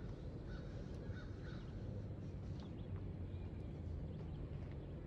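A crow cawing a few times in the first second and a half, over a faint steady low rumble.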